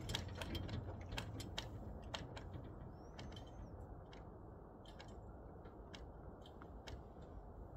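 Faint low rumble that fades over the first few seconds and then holds steady, with scattered short, sharp clicks and ticks through it.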